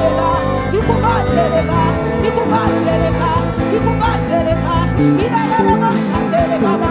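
Live gospel worship band playing an instrumental passage: sustained chords over a steady bass, with short bending melodic runs on top.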